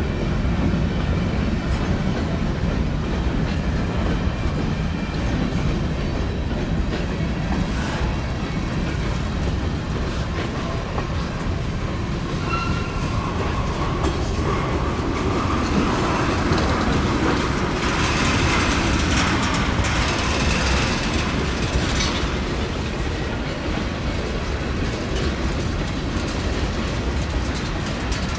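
A train rolling past close by, its wheels clattering steadily over the rails, with a few brief high-pitched squeaks around the middle.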